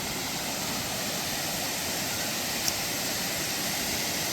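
Waterfall rushing with a steady, even roar of falling water, with one faint tick a little over halfway through.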